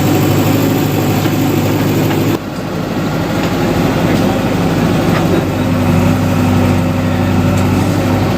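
JCB 3DX backhoe loader's diesel engine running steadily. The sound changes abruptly about two seconds in, and a steady higher hum joins for about two seconds past the middle.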